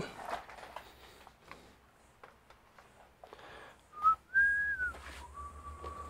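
A person whistling a short phrase of three notes about four seconds in: a brief note, a higher, longer note that slides up and back down, then a lower held note. Faint clicks and shuffling come before it.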